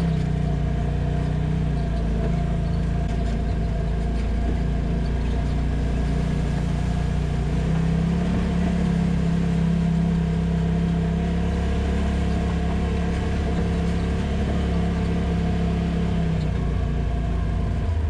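Polaris RZR side-by-side engine running steadily under way on a trail, its drone shifting slightly up and down in pitch with the throttle.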